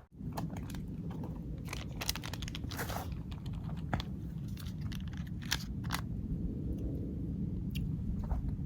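Irregular crunchy clicks and scrapes from a camp meal being handled and eaten, over a steady low rumble of wind on the microphone.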